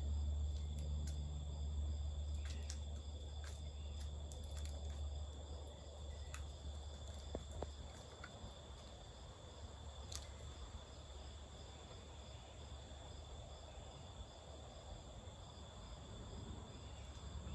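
Insects chirring steadily in a high, even drone, over a low rumble that fades away about seven seconds in, with a few faint clicks.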